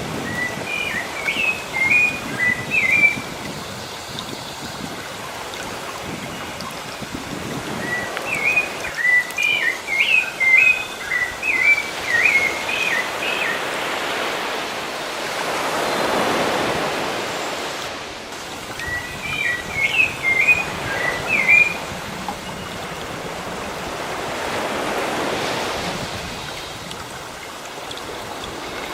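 Sea waves washing in, swelling and falling back in slow surges. A bird sings three runs of quick chirping phrases over the surf.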